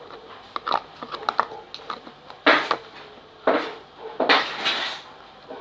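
A utensil stirring a slime mixture of liquid glue and detergent in a container: scattered light clicks and taps, then three scraping strokes about a second apart, the last the longest.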